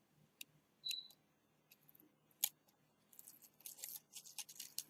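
Faint scattered clicks, then from about three seconds in a run of quick crackling ticks: adhesive tape being peeled and handled on a phone's display gasket.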